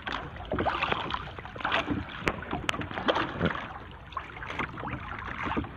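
Water sloshing and splashing around a small fishing boat, with scattered light knocks and clicks from the paddle and gear on the hull.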